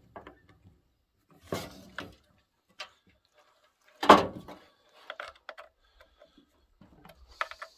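Knocks and clicks of a Husqvarna 572 XP chainsaw being handled while a full-wrap handle is fitted, with one loud thump about four seconds in as the saw is turned over and set down on its end.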